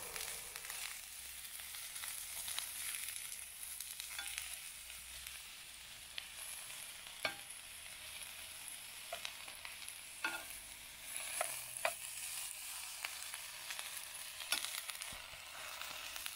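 Broccoli and eggplant slices cooking in a pan on a portable gas stove, a steady sizzling hiss, with a metal spoon clicking against the pan now and then as they are stirred.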